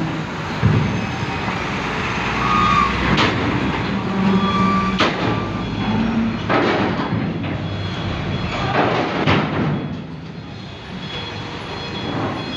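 Loaded heavy cargo truck driving onto a ferry's steel loading ramp, its diesel engine running under load, with several sharp clanks as it crosses the ramp. The noise eases about ten seconds in.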